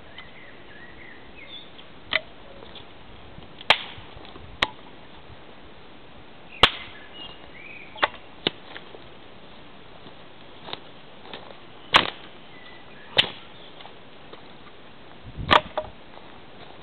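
Wood fire crackling: about ten sharp, irregular pops and cracks from burning sticks, spaced roughly a second or two apart.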